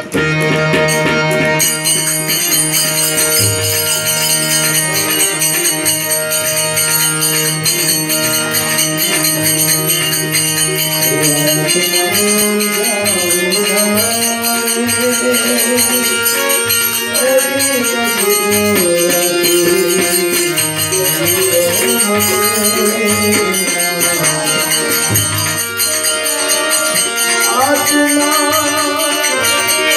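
Bhajan music: a harmonium sounds held chords with jingling hand percussion running throughout. From about twelve seconds in, a voice sings a gliding melody over it.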